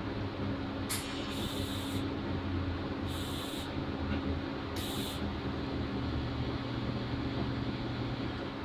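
TIG welding torch, on a Lincoln Square Wave 175, making autogenous tack welds (no filler) joining steel tube to flat bar. Three short hissing bursts of a second or less, about a second, three and five seconds in; the first opens with a sharp crack. A steady low hum runs underneath.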